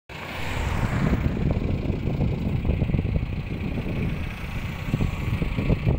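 Tractor engine running steadily, with some irregular rattling.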